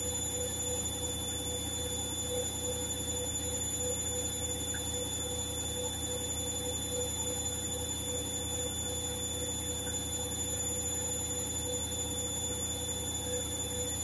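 Hoover H-Wash & Dry washer-dryer in its high-speed spin: a steady motor whine with high tones over the hum of the spinning drum.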